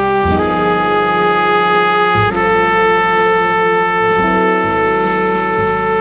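Studio jazz quintet recording: a brass lead horn plays long held notes, changing about every two seconds, over upright bass and drums.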